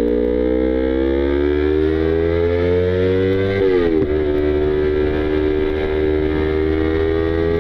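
Yamaha YZF-R25 parallel-twin engine pulling under acceleration, its pitch climbing slowly, then dropping sharply at an upshift about three and a half seconds in before holding steady and starting to climb again.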